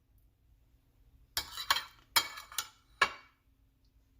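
Kitchen utensils knocking against dishes: a quick run of about five sharp clinks and clatters with short ringing, starting about a second and a half in and over within two seconds.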